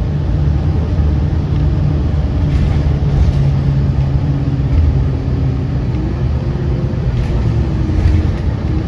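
Loud, steady low engine drone with a low hum and a faint, slightly wavering tone above it.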